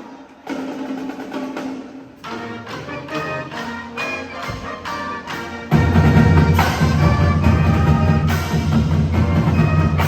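High school pit band and drumline playing the school fight song. It starts softly with a held note and separate pitched notes, then a little over halfway through the full band comes in much louder with heavy drums.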